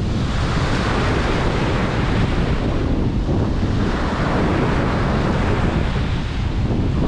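Ocean surf breaking and washing up a beach, the hiss of the water swelling and falling back in a few successive washes over a steady low rumble.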